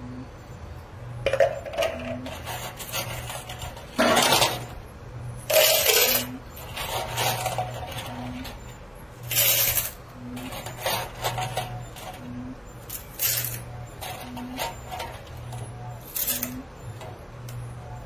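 Peso coins clattering and chinking together in a series of short bursts as they are scooped up from a coin pusher's payout tray. Underneath, a steady machine hum with a faint short low tone about every two seconds.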